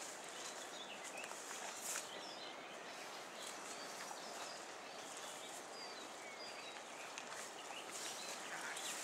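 Steady rushing of a wide river, with small birds chirping now and then and a few faint ticks.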